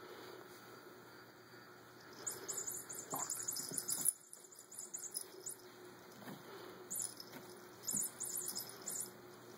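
A small bell jingling in two quick, shaking bursts, about two seconds in and again near the end, as a kitten bats and scrambles on a carpeted cat tree. A few soft thumps of its paws on the tree come with it.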